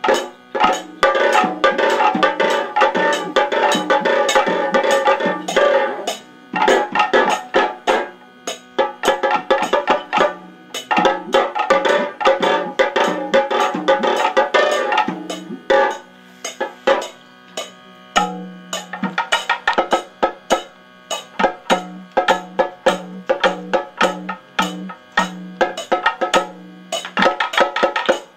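Kathakali music: fast drumming with dense, rapid strokes over ringing pitched tones. A little past halfway the ringing tones drop away and the drumming goes on over a low repeated note.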